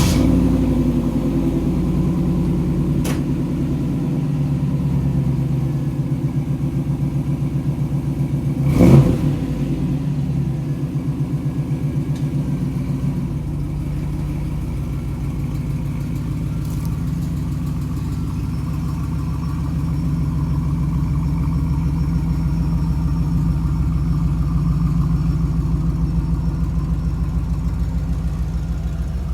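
A Nissan Altima's engine catches right after cranking and then idles with an even pulsing beat, revved briefly once about nine seconds in. This is the car with a misfire.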